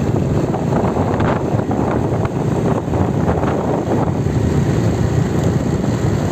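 Steady low rumble of a vehicle driving along a road, road and engine noise without a break.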